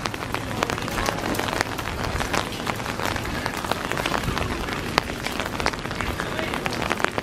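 Steady rain, with many small drops ticking sharply close by.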